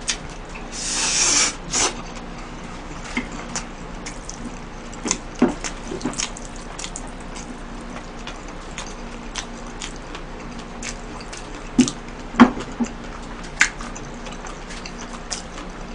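Close-miked eating of spaghetti: a long noodle slurp about a second in, then wet chewing and lip-smacking clicks, with a few sharper clicks near the end.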